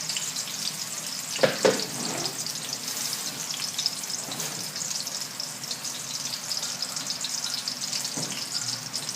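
Garlic and red onion sizzling steadily in hot oil in a wok, with a couple of louder stirring knocks against the pan, the loudest about a second and a half in.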